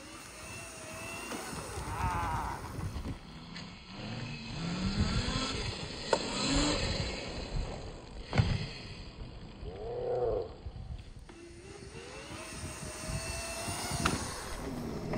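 Razor RSF650 electric minibike with a 72 V, 5000–6000 W motor-kit conversion whining under throttle as it rides past: the motor's pitch rises and falls in a few glides as the rider accelerates into a wheelie and eases off. Two sharp knocks about six and eight and a half seconds in.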